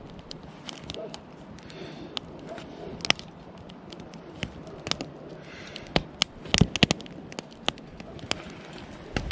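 Wood campfire crackling: irregular sharp pops over a steady hiss, with a cluster of louder pops about six and a half seconds in.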